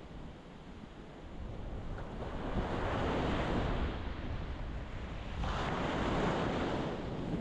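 Ocean waves breaking on a rocky shore: the surf swells up about two seconds in and surges again a little after halfway, over a steady low rumble of wind on the microphone.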